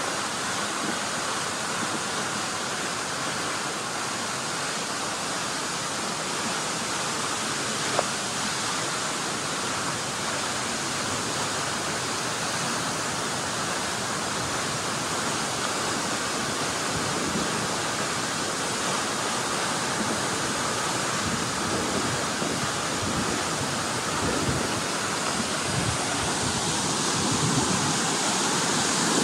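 Cascading water rushing steadily, growing a little louder near the end, with a single brief click about eight seconds in.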